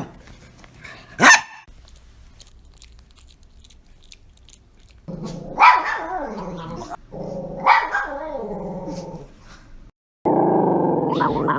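Dogs making odd vocal noises: a short sharp bark about a second in, then drawn-out growls that bend up and down in pitch, broken by two bark-like peaks. A loud, steady held note comes near the end.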